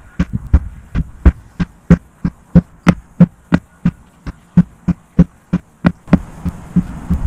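Hand sledgehammer striking a rubber tractor tire over and over, a steady run of sharp thuds about three a second.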